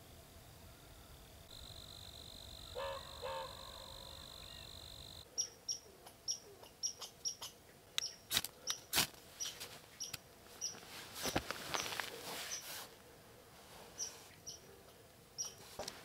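A steady high-pitched insect trill for the first five seconds, with two short lower calls about three seconds in. Then a small bird chirps over and over, about twice a second, among scattered sharp cracks and snaps.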